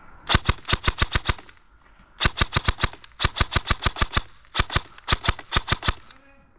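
Airsoft rifle firing four rapid bursts of sharp cracks, roughly ten shots a second, with short pauses between bursts.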